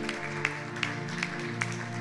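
Intro theme music: sustained chords over a steady percussive beat of about two and a half hits a second.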